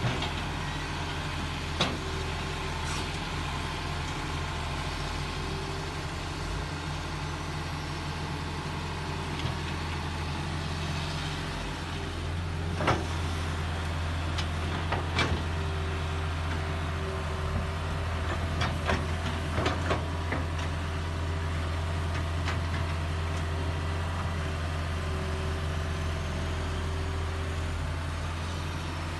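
Heavy excavator diesel engine running steadily, with several sharp metallic knocks over the top.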